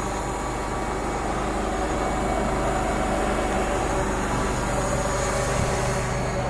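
An engine running steadily at an even idle-like hum.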